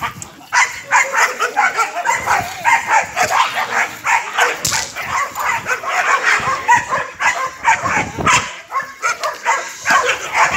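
A dog barking rapidly and without pause at a decoy during protection (bite) training, its barks coming several a second.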